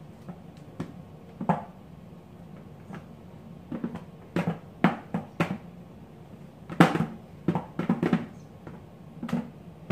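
A plastic blender jar holding cold butter is rubbed and jostled between the hands to warm it by friction. It gives irregular dull knocks and bumps in uneven clusters, the loudest about two-thirds of the way through.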